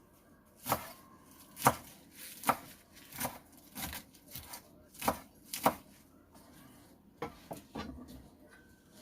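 Knife chopping kale: about a dozen separate chopping strokes, roughly one every half second to second, with a short pause around six to seven seconds in.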